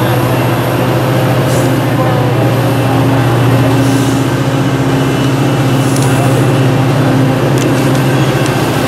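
Coaster's MPI F40PHM2-C diesel locomotive running as it pulls away from the platform, a steady low engine drone.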